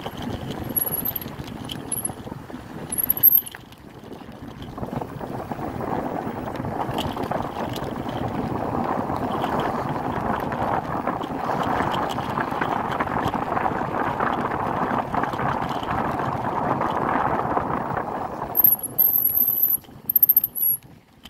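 Mountain bike rolling over a dirt trail: a steady rumble of tyres on packed dirt with the bike rattling, strongest through the middle stretch. Near the start and again near the end there are a few short, high, wavering squeals.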